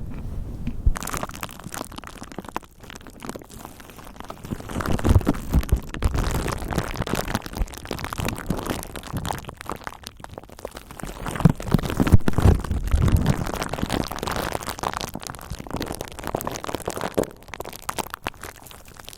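Bubble wrap and a furry microphone windscreen cover handled right against the microphone: continuous crackling and crinkling, with deep rumbling swells around five seconds in and again around twelve.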